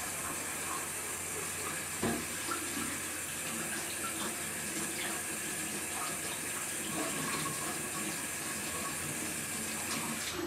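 Kitchen sink tap running steadily, with hands moving under the stream and a light knock about two seconds in.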